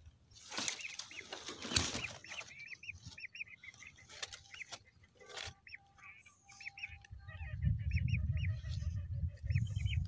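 Lesser whistling ducks giving many short, high whistled calls, with a rush of noise near the start and a few clicks around the middle. Low rumbling noise joins in the last few seconds.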